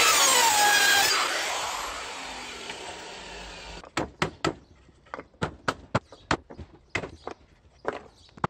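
DeWalt circular saw finishing a cut and winding down, its whine falling and fading over the first few seconds. About four seconds in, a claw hammer starts knocking out the thin slivers of wood left between saw kerfs in a timber post, in a quick, irregular run of sharp knocks, two to three a second.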